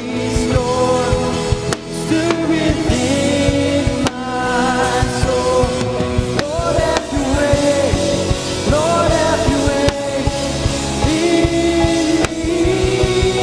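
Live worship band playing a rock-style song on electric guitar, electric bass guitar and drum kit, with a melody line that moves in pitch throughout.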